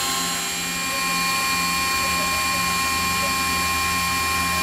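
Mazak FJV-250 vertical machining center's spindle turning a 20 mm grinding tool at 4000 rpm as it grinds a quartz plate at 0.2 mm depth of cut: several steady tones over an even grinding hiss.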